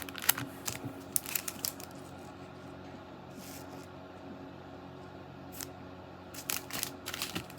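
Hands handling small packaging and pieces: light rustles and small clicks, in a cluster near the start and another near the end with a quiet stretch between.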